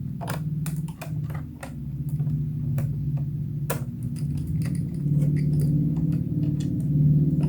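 Irregular small plastic clicks and taps as a laptop is being reassembled after a RAM upgrade, over a steady low drone of unclear source.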